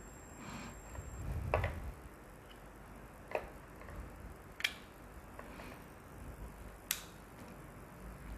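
Four small, sharp plastic clicks a second or two apart over soft handling rustle: Edifier X5 wireless earbuds being handled and set into their charging case.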